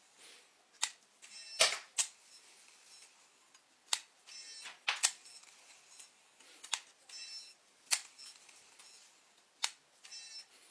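Sharp mechanical clicks, one every second or two, with short, fine rattling ticks between several of them, from the brake controls of a Loongze DBC baitcasting reel being adjusted.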